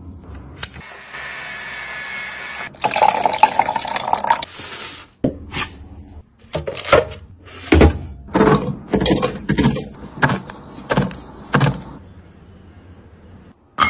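Water hissing and bubbling in a bowl around a capsule fruit-and-vegetable purifier, then a run of short, separate handling noises, about two a second.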